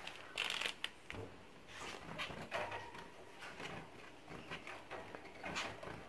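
Caged zebra finches calling, many short chirps at irregular intervals, with some light rustling.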